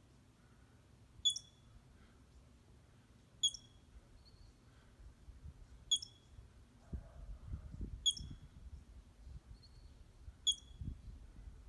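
Squirrel giving sharp, high alarm calls, five single calls about two to two and a half seconds apart. A low rumble comes in about midway.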